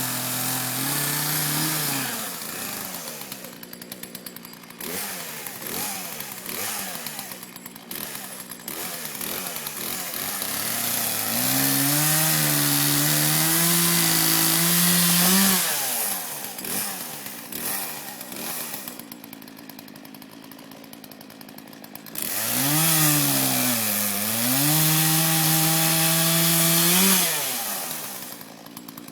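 Chainsaw cutting: it runs at high revs, drops to idle about two seconds in, then is opened up to full throttle twice for about four to five seconds each, the pitch sagging and recovering as the chain bites into the wood, idling in between.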